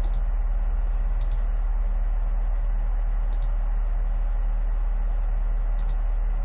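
Four short, sharp computer clicks spaced a second or two apart, each one entering the next stone on an on-screen Go board, over a steady low hum.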